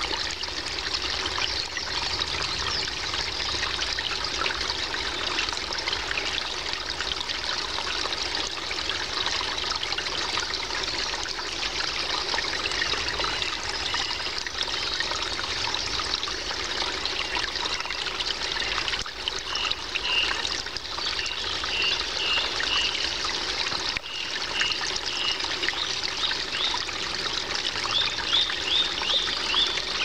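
Small forest stream trickling and splashing over stones in a steady wash of water. A series of short high chirps comes in about two-thirds through and again near the end.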